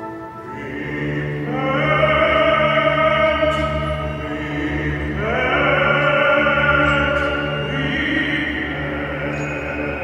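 Large mixed choir singing sustained chords with a symphony orchestra, the voices swelling up about a second in and again around five seconds in over a steady low accompaniment.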